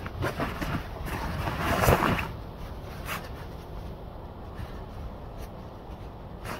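Nylon fabric rustling as the compression sack of a sleeping bag is handled, its straps loosened and its drawstring top opened. It is loudest in the first two seconds, then settles into quieter handling with a couple of light clicks.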